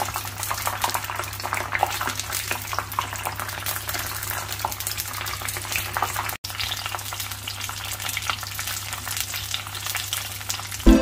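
Chicken spring rolls deep-frying in oil over low heat: a steady, dense crackle of small pops and bubbling. A steady low hum runs underneath.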